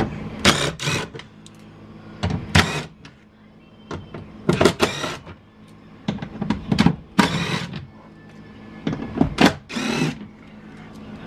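A tool turning a 10 mm socket in a series of short bursts, backing the bolts out of a car's rear door.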